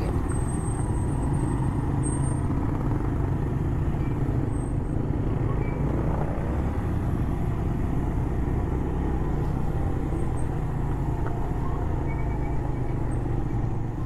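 Motorcycle engine running steadily while being ridden along a rough track, mostly a steady low sound.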